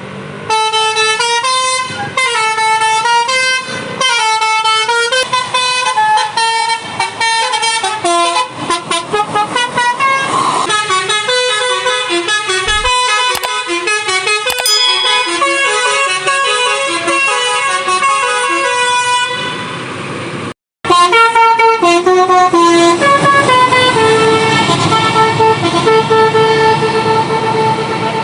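Bus's Basuri multi-tone 'telolet' air horn playing a melody of quick stepped notes, with a short break a little past the twenty-second mark before the notes carry on.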